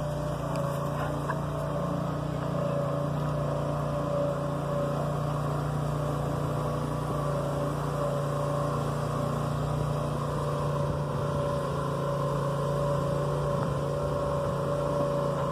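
Lawn mower engine powering a small homemade truck, running at a steady speed with an even hum and no revving.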